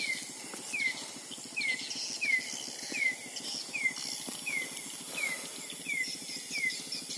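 Night-time outdoor insect chorus: a steady high cricket-like trill, with a short falling chirp repeating regularly about every three-quarters of a second.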